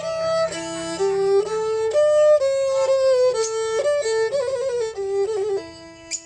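Thai bowed fiddle (saw) playing a traditional kantrum melody, moving between held notes with quick ornamental runs.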